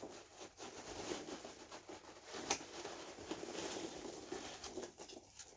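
Hands rummaging through loose polystyrene packing chips in a box: a continuous crackly rustle of small clicks, with one sharper click about two and a half seconds in.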